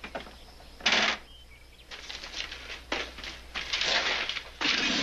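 Handling noises: a short sharp knock about a second in, then repeated bursts of rustling and scuffing.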